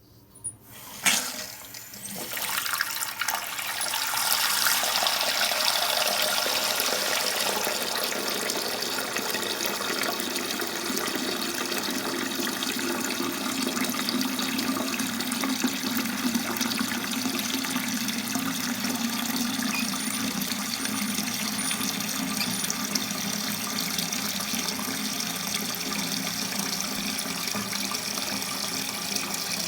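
Newly installed toilet tank fill valve letting water rush into the tank as the supply is turned on. Two short knocks come in the first second, then the hiss of inflowing water builds over a few seconds and stays steady.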